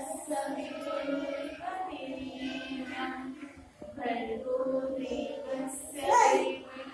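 Young children and women singing a prayer together in unison in held, chant-like phrases, with a short breath a little under four seconds in and a louder swell near the end.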